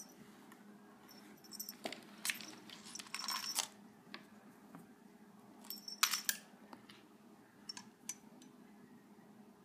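Faint rustles and soft clicks of a phone being handled, in small clusters about two, three and six seconds in, over a low steady hum.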